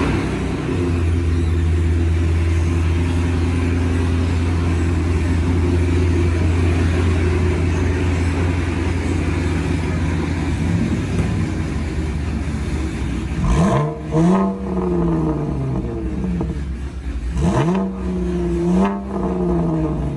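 2016 Chevrolet Camaro's 3.6-litre V6, its resonators replaced by an X-pipe, running at a steady drone, then revved sharply twice in the last third.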